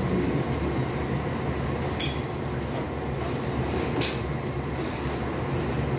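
Short crackling rustles of fried chicken and its paper wrapper being handled, one about two seconds in and again around four and five seconds, over a steady low background hum.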